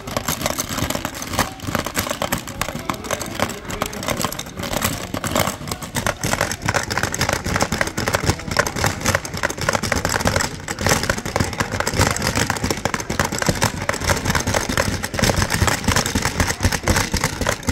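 Rapid plastic clacking and rattling of a turtle marble-chomping game, like Hungry Hungry Hippos, as several players hammer its levers: the plastic turtle heads snap out and small plastic marbles rattle around the tray. A dense, fast clatter without pause.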